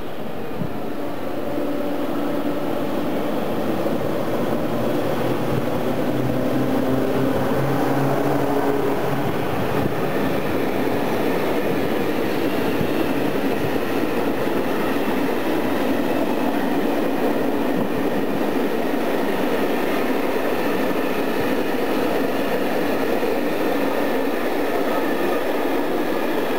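Freight train passing close by: the locomotive's hum comes in first with a few steady low tones, then a long train of covered hopper wagons rumbles past with a steady rolling noise.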